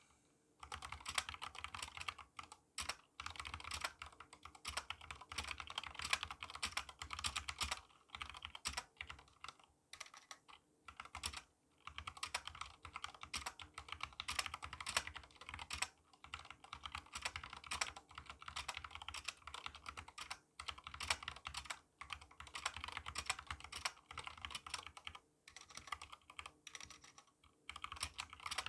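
Fast, continuous typing on a stock Epomaker GK68XS mechanical keyboard: Gateron black linear switches in a steel plate and plastic case, with XDA keycaps. The key strikes come thick and quick, with a few short pauses between bursts.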